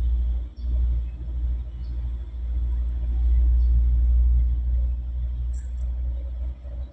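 A loud, low rumble that swells and dips, with a few faint clicks.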